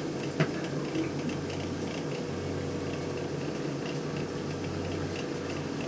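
Hot-water heating boiler running just after being fired, with a steady rushing noise, a constant low hum and a faint steady tone. A single light click comes about half a second in.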